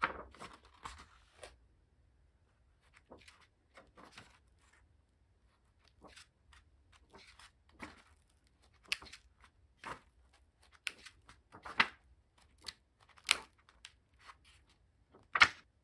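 Paper pages of a Kuromi diary being turned and handled: a run of irregular crisp page flicks and rustles, the sharpest ones in the second half.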